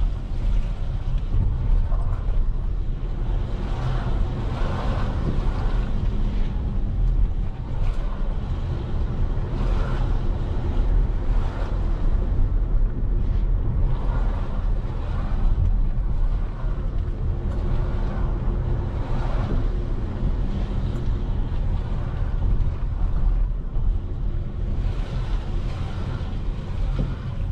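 A road vehicle driving along: steady low engine and road rumble, with a faint hum and slight rises and falls as it moves through traffic.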